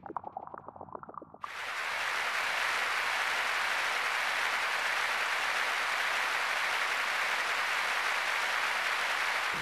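Rapid small pops for the first second and a half, then a steady, even hiss cuts in abruptly and holds.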